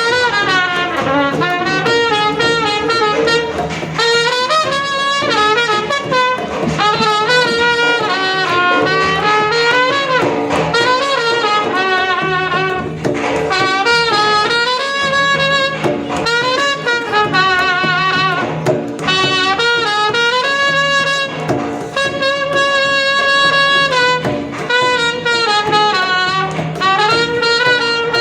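Shehnai (sanai) playing an ornamented melody full of glides and bends over a steady drone note.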